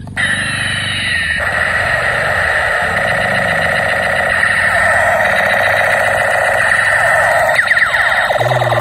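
Battery-powered Spider-Man toy gun with a light-up spinning propeller, its trigger held: a loud, warbling electronic siren-like sound effect from its speaker, with quick rising and falling sweeps near the end.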